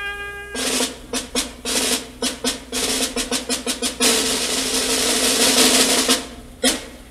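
Instrumental drum break in a recorded song: a held trumpet note ends about half a second in, then a run of snare drum strikes, a snare roll of about two seconds, and a few single hits near the end.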